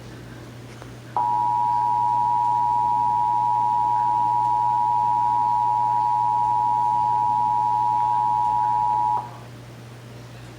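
Emergency Alert System two-tone attention signal: the 853 Hz and 960 Hz tones sounded together, starting about a second in and cutting off cleanly about eight seconds later. It is the alert tone that announces the spoken EAS test message.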